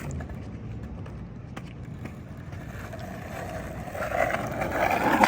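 Skateboard wheels rolling on wet pavement, growing louder from about three seconds in as the board nears, ending in a sharp knock.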